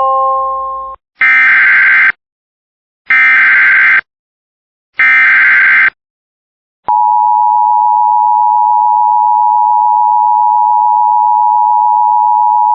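Emergency Alert System alert opening: the fading end of a chime, then three short bursts of SAME digital header data, each just under a second long and about a second apart, announcing a flood warning. About seven seconds in, the steady EAS attention tone starts and holds.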